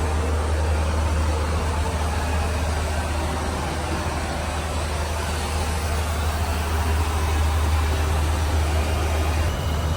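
Steady low drone and rushing hiss of a Boeing 737-800's engines and airflow, heard from inside the passenger cabin.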